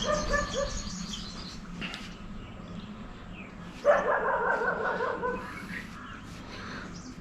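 A pet dog vocalising: a few short high whines at the start, then a longer wavering whine about four seconds in.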